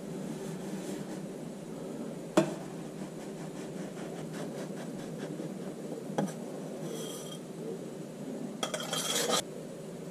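Small knocks and scraping from tools and parts being handled at a sand-packed moulding flask. A sharp knock comes a couple of seconds in, a lighter one around six seconds, and short bursts of scraping follow near the end, over a steady low hum.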